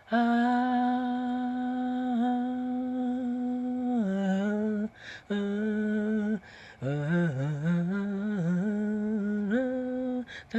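A single voice humming wordlessly. It holds one long steady note for about four seconds, then sings a few shorter notes and a winding melodic run that rises and falls in pitch.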